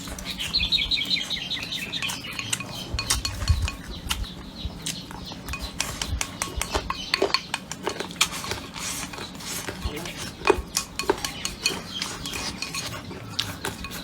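Chopsticks and utensils clicking and clinking against bowls and plates during a meal, as irregular sharp taps throughout.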